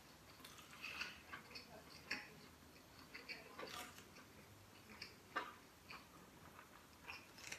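Faint, irregular wet clicks and smacks of a person chewing a mouthful of steamed beef and mushroom bun, picked up close by a clip-on microphone.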